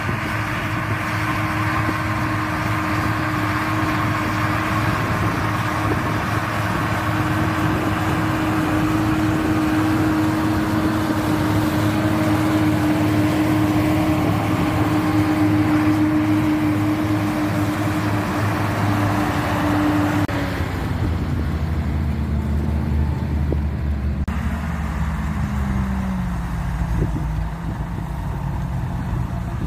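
Fiat 160-90 Turbo DT tractors' six-cylinder turbo diesel engines running steadily under load while pulling reversible ploughs. About two-thirds of the way through, the engine note falls as the revs come down.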